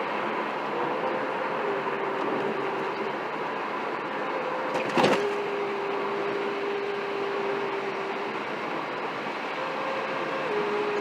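Steady road noise of a moving vehicle with a held tone that steps between two pitches and wavers near the end. A single sharp click comes about five seconds in.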